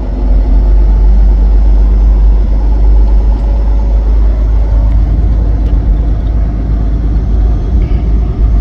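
Steady low rumble of an empty semi-truck's engine and road noise, heard inside the cab while it climbs a bridge.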